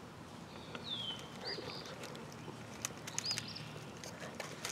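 Faint, high songbird chirps, a few short notes and one brief falling whistle, over quiet outdoor background, with a few soft clicks.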